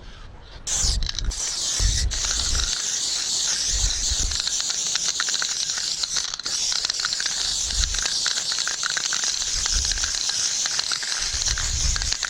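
Aerosol spray-paint can spraying in one long continuous hiss that starts about a second in, with occasional low thumps underneath.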